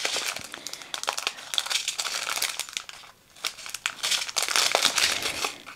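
Small plastic bags of diamond-painting drills crinkling as they are handled and snipped open with scissors. The crinkling is a busy run of small clicks and rustles, with a short lull about three seconds in.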